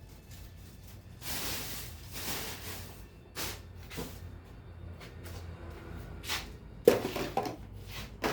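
Handling noises of objects being moved about: rustling swells, a few clicks and one sharp knock about seven seconds in, the loudest sound.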